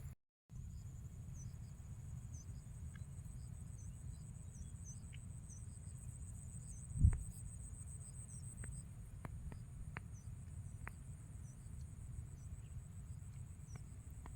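Insects trilling steadily in a high, continuous buzz with small repeated chirps, over a low rumble. A single low thump about seven seconds in is the loudest moment.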